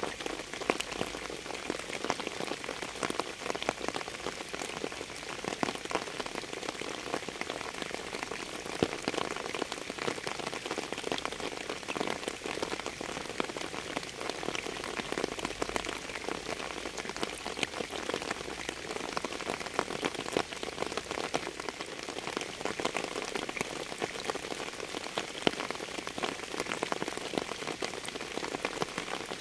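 Steady rain falling, a constant hiss made of countless individual drops striking a surface, with no change in strength.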